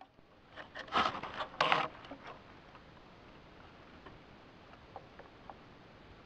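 Two brief scraping rustles of dry leaves, a little under a second apart, as the rifle and camera are shifted in a leaf hide; then a faint steady hiss with a few small ticks.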